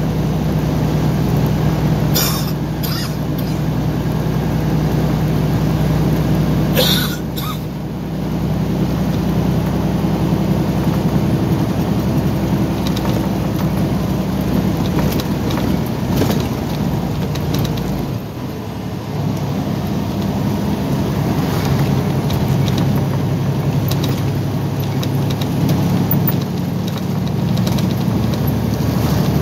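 Heavy truck engine running steadily inside the cab, a low drone with road and tyre noise. There are brief sharp noises about two and seven seconds in, and the deepest rumble drops away about eighteen seconds in.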